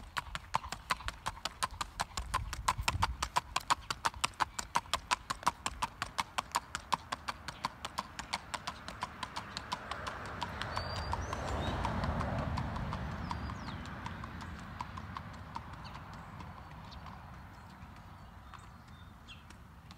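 A gaited horse's hooves striking hard ground in a quick, even clip-clop, several beats a second, fading away after about halfway through. A broad rush of noise swells and dies away around the middle.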